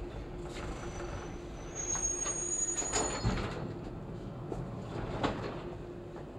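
Subway train pulling up at the end of a station platform, heard from on board: a steady hum and rumble, a high thin squeal of braking wheels about two seconds in that stops after a second, then a few knocks from the car, the strongest near three and five seconds in.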